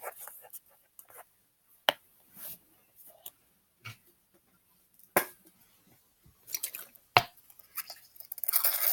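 Slime being stirred with a pen in a plastic phone-case lid: scattered soft sticky squelches and a few sharp clicks. A denser rustling starts near the end.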